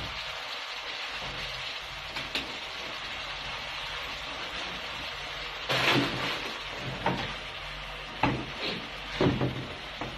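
Crayfish sizzling in a wok with a steady hiss. In the second half, a spatula knocks and scrapes against the pan several times as they are stirred and turned.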